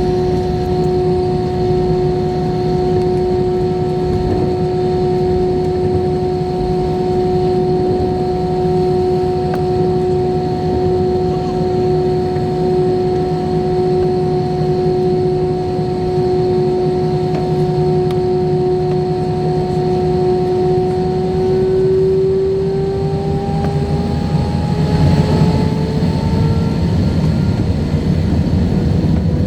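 Airbus A320's IAE V2527 turbofan engines whining steadily over a low rumble, then rising in pitch from about 21 seconds in as they spool up toward takeoff thrust, the whine giving way to a louder rush.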